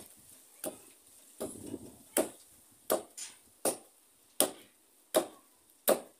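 Long wooden pestle pounding cassava and plantain fufu in a mortar: about nine steady thuds, roughly one every three-quarters of a second.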